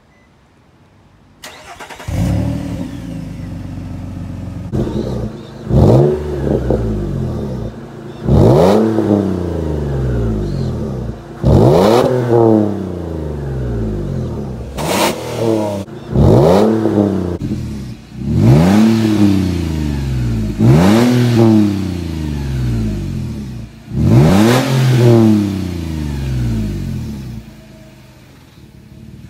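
2006 Nissan Pathfinder's 4.0-litre V6 exhaust through a Flowmaster Super 44 muffler, welded in place of the stock muffler, revved again and again from idle. There are about eight sharp blips, each rising quickly and sinking back to idle. The engine starts about two seconds in and drops off near the end.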